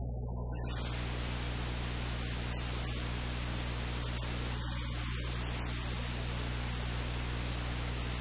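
Steady static hiss over a low, constant electrical hum: recording noise with no distinct sound event.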